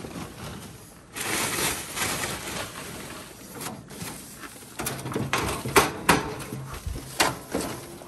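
Snow being brushed and scraped off a stainless gas grill with a gloved hand, a rustling scrape, then from about five seconds in several sharp metal clanks and knocks as the grill's lid and cooking grates are handled.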